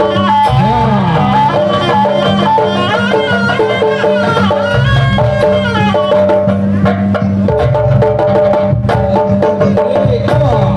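Jaranan music: a reedy wind melody with wavering pitch slides over drumming and steady low gong-chime tones.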